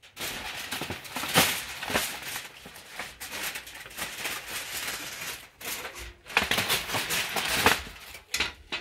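Aluminium foil crinkling and crackling as it is folded and scrunched around a rotisserie lamb leg, an irregular run of crackles with a few louder crunches.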